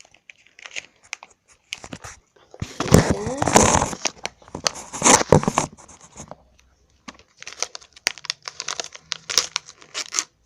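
Chewing gum packet being torn open and its wrapper crinkled. There is a loud tearing stretch about three seconds in, another shortly after five seconds, and then more crinkling near the end.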